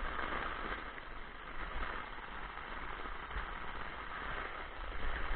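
Front-wheel-drive car idling in drive as it creeps slowly forward with no gas applied, under a steady hiss and low rumble.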